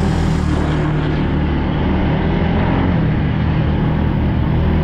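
ATV engine running steadily while riding, a constant low engine drone with a hiss of wind and tyre noise over it.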